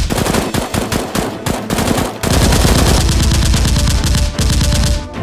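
Bursts of rapid automatic gunfire, a machine-gun sound effect, shot after shot in quick succession with short breaks between bursts.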